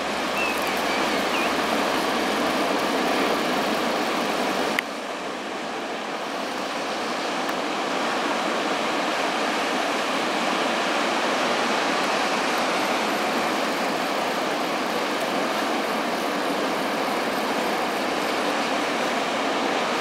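Steady rushing noise of sea surf and wind along a rocky coast. About five seconds in the sound cuts abruptly, drops a little quieter, then builds again.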